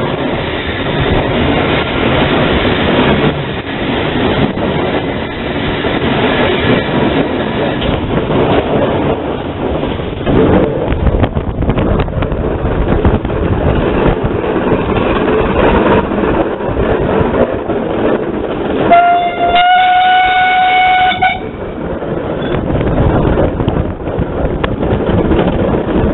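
0-8-0 steam tank locomotive under way, heard from the cab: continuous running noise and rail clatter, with one steady steam-whistle blast of about two seconds about three-quarters of the way through.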